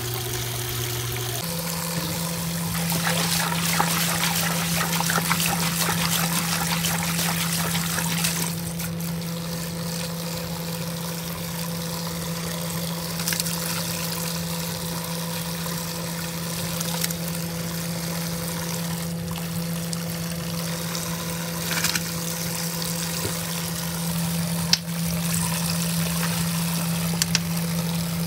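Water pouring in streams from a top-loading washing machine's fill spout onto a drum full of suds, with a steady low hum underneath that steps up in pitch about a second and a half in.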